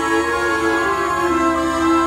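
String orchestra playing held notes, with a lower line stepping down to a new pitch about halfway through.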